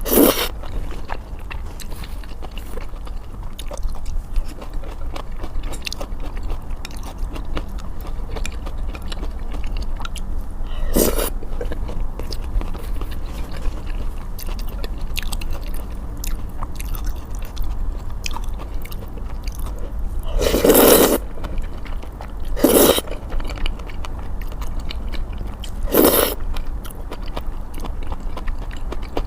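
Close-miked eating of sticky malatang: steady wet chewing and mouth clicks, with five louder noisy bursts, one just after the start, one about a third of the way in, and three close together in the last third.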